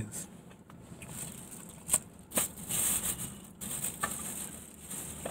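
Rustling handling noise with a couple of sharp clicks about two seconds in.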